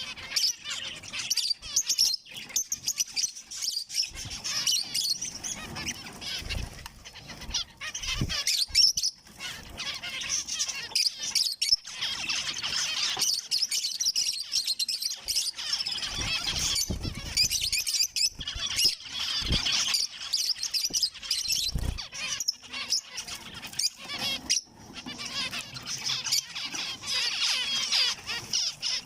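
Zebra finches calling and chirping, many rapid overlapping chirps, with a few brief low thumps in between.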